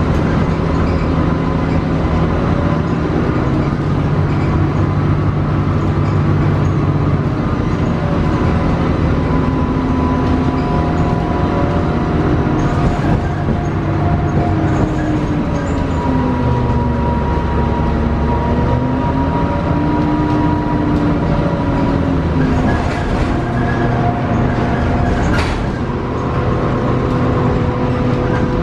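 Cabin sound of a 2006 Gillig hybrid transit bus under way, with a Cummins ISB 5.9L diesel and Allison EP40 hybrid drive: a steady engine drone and road noise under a whine whose pitch falls and rises again with the bus's speed.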